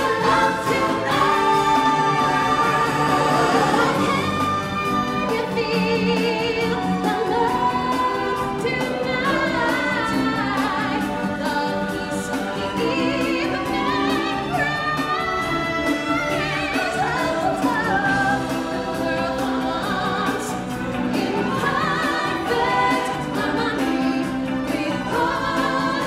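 A choir and solo voices singing over an orchestral backing track in a live stage musical, with a steady, full sound.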